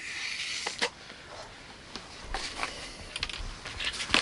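Scattered light clicks and short rustles of hands handling small plastic toy pieces and an inflated plastic balloon tube.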